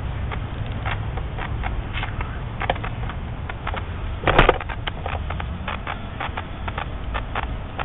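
Small irregular clicks and rubbing from hands handling a torch and heat-shrink tubing, over a steady low rumble, with one louder thump a little past four seconds in.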